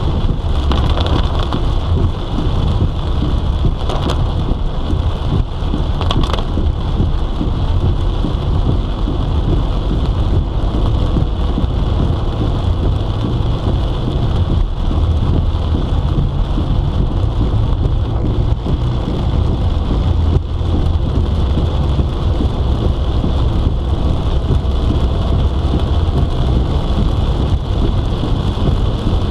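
Heavy monsoon rain hitting a car's roof and windscreen, heard from inside the moving car, over a steady low rumble of road and engine noise.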